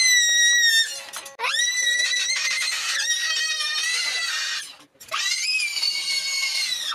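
Children's electronic toy keyboard giving out high-pitched, squealing electronic tones that glide in pitch, in three stretches with short breaks between.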